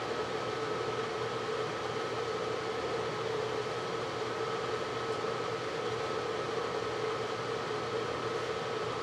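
Steady background noise: an even hiss with a constant two-tone hum, like a fan running, unchanging throughout.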